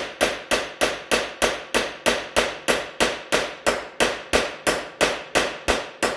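Steel hammer striking a punch in a steady run of sharp metallic blows, about three a second. The punch is driving through a drilled-out fastener head, which is folding up and collapsing.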